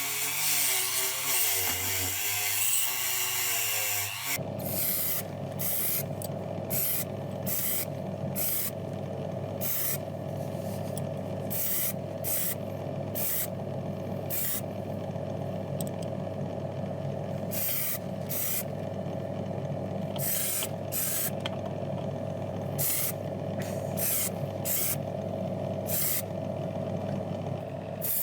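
Short hissing bursts of compressed-air spray, about twenty of them at irregular intervals, over a steady motor hum. Before that, about four seconds of a running tool with a wavering pitch stops abruptly.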